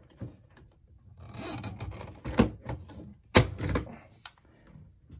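Hand pop-rivet gun squeezed on a 1/8-inch pop rivet, with rasping and clicking from the tool and a sharp snap about three and a half seconds in as the mandrel breaks off and the rivet sets.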